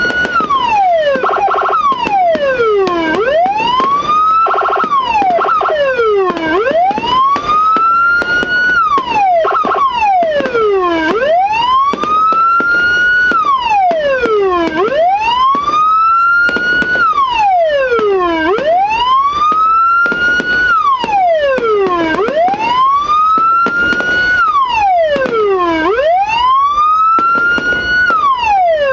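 Aftermarket police-escort siren, a multi-tone siren module driving a 10–15 W TOA horn speaker, sounding loudly in a wail pattern. The pitch rises over about two seconds and then falls, repeating about every three seconds.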